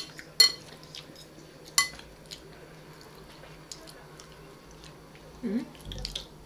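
Cutlery clinking and scraping on plates during a meal: a few sharp clinks in the first two seconds, then lighter, scattered taps.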